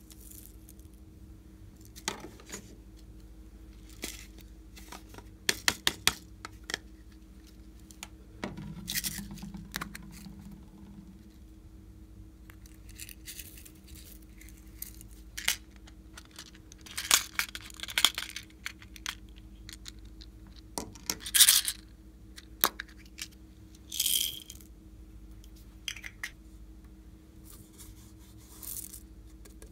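Plastic sequins dropped by hand onto slime in a glass tray and shaken from a small plastic cup: irregular light clicks and rattles, with several louder rattling clusters.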